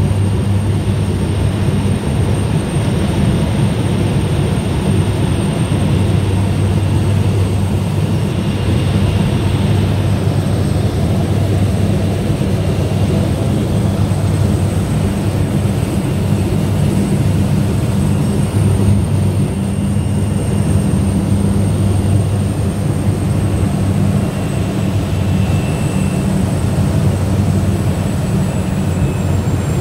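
Floatplane's engine and propeller running steadily, heard from inside the cabin while the plane lands and runs across the water.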